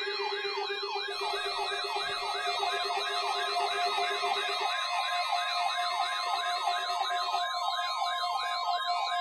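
A fast electronic siren yelping up and down about four times a second, over the steady single tone of a NOAA Weather Radio alert test, which comes in about a second in.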